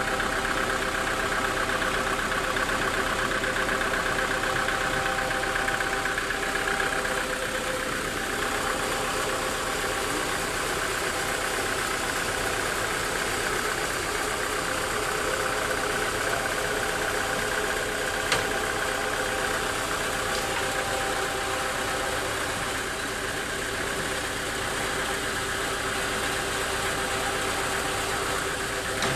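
Sawmill machinery running steadily, a constant mechanical hum with several held tones. There is one short click about two-thirds of the way through.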